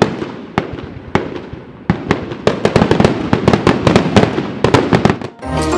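Fireworks display: a few separate bangs a half-second or so apart, then from about two seconds in a rapid barrage of bangs and crackles, which stops just before music comes in near the end.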